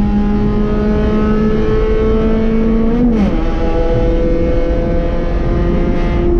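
B-Spec race car's small four-cylinder engine pulling hard, its pitch climbing slowly through a gear. About three seconds in it upshifts with a quick drop in pitch, then climbs again, and near the end the engine note drops away. Heavy wind and road noise runs underneath.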